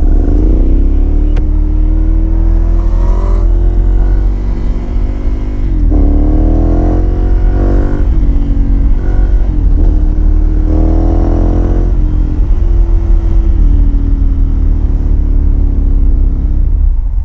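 Ducati Monster's L-twin engine through an aftermarket Termignoni exhaust, accelerating through the gears: several climbs in pitch, each breaking off at an upshift and starting again lower, then running steadier near the end. Heavy wind rumble on the microphone underneath.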